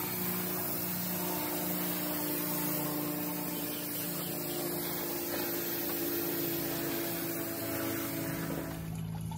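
Garden hose spray nozzle spraying water over garden beds: a steady hiss with a low hum under it, cutting off shortly before the end.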